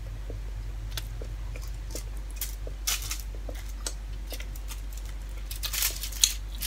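Eating with bare hands: chewing and mouth sounds, with scattered crackles and clicks as fingers gather rice on aluminium foil. The crackling is busiest and loudest near the end, over a steady low hum.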